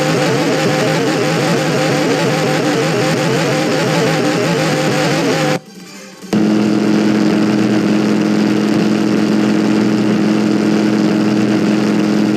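Ceiling fan running with a steady whirring hum. It stops abruptly about five and a half seconds in and comes back under a second later with a stronger, steadier hum.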